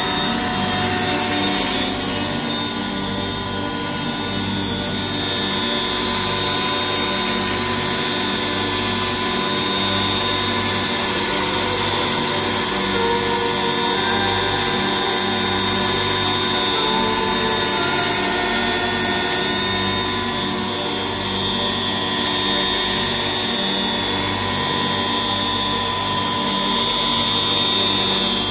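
Radio-controlled scale Sikorsky MH-60S Seahawk model helicopter hovering, its drive giving a steady high-pitched whine over a lower hum.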